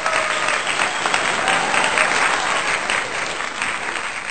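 Audience applause: dense, steady clapping from many hands.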